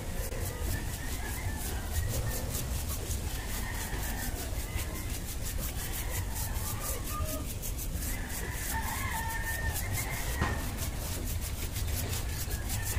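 Paintbrush scrubbing and dabbing paint onto a rough cement wall in quick, evenly repeated strokes, with chickens calling in the background.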